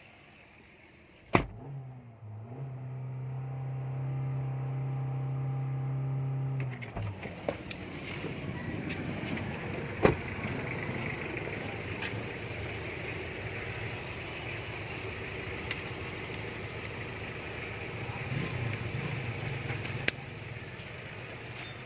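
Suzuki Ertiga engine, its battery discharged, being jump-started from another car: a sharp click about a second in, then the engine running steadily.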